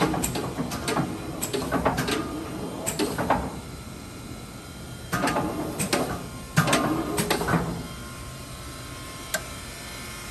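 Clattering metal knocks and rattles in two bursts a few seconds apart, from parts of a vertical boring mill being handled, then a single click near the end.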